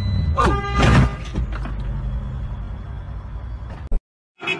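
Low rumble of a car heard from inside the cabin, with a brief loud pitched sound that drops and then holds, peaking about a second in. It cuts off abruptly near the end.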